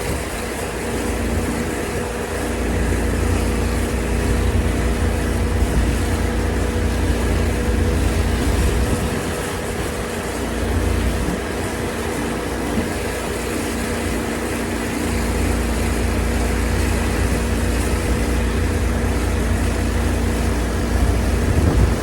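An engine running at a steady speed, its hum holding one pitch, under a rushing hiss and a low rumble that rises and falls.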